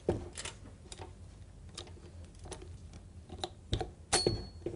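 Scattered light clicks and knocks from a tilt-head stand mixer's whisk attachment and stainless steel bowl being handled with the motor off, with a short high metallic ring about four seconds in.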